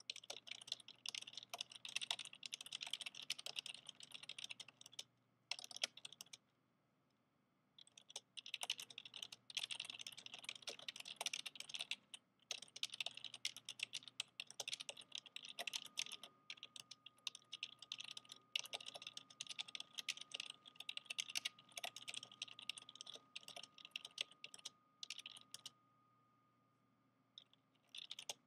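Rapid typing on an old PC's loud, clicky keyboard: a dense run of key clacks in bursts, breaking off for about a second and a half some six seconds in and again near the end. A faint steady high tone joins about halfway through.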